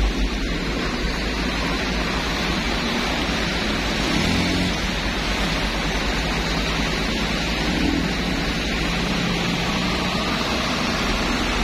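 Steady rushing of muddy floodwater pouring across a road. A motorbike and a truck drive through it, and their engines come up faintly midway.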